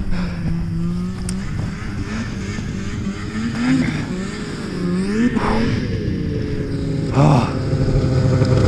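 Snowmobile engine running, its pitch rising and falling as the throttle changes.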